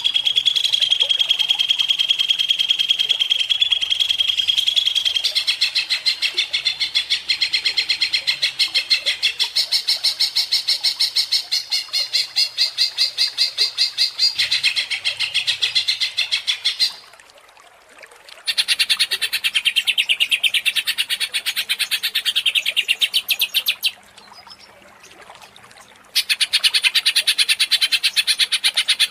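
Cucak ijo (green leafbird) singing in long, rapid trills of fast-repeated high notes. This is the agitated, non-stop 'gacor ngentrok' song used as a lure to provoke other birds. It breaks off twice for a second or two.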